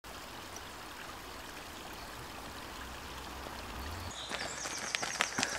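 Steady rushing of a forest stream. About four seconds in it gives way to quick, irregular crunching footsteps of people running over the forest floor.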